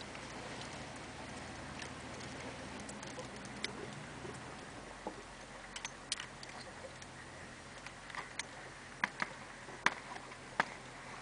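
Steady low hum of a 1991 GMC Suburban's diesel engine heard from inside the cab as the truck rolls along a muddy trail. Scattered sharp clicks and rattles come through it, more often in the last few seconds.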